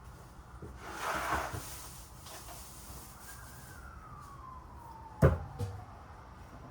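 Kitchen handling sounds: a brief rustle about a second in, then a sharp knock about five seconds in with a quieter one just after. Behind them a faint tone rises and then slowly falls.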